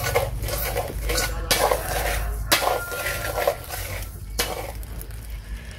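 A thin clear plastic bag crinkling and rustling in irregular crackles as hands pull grilled chicken out of it and out of a plastic bowl, over a steady low hum.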